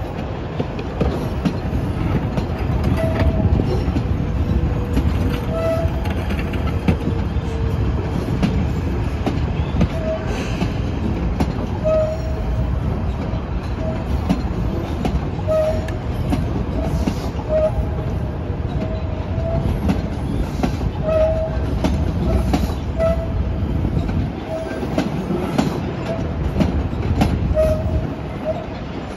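PATH subway train rolling slowly over curved tracks and switches: a steady low rumble and clatter, with short, high squeaks recurring every second or two.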